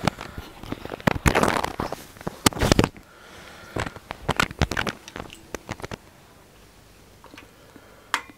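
Handling noise: a run of sharp clicks, rattles and rustling as leads and small tools are moved about, the loudest in the first three seconds, dying away about six seconds in to quiet room tone.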